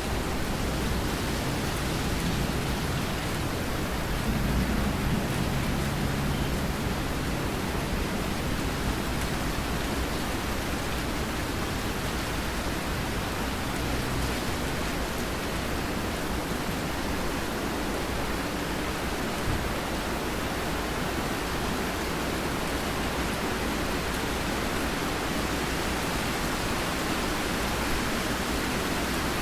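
Steady rain, an even hiss, with a low rumble under it for the first several seconds.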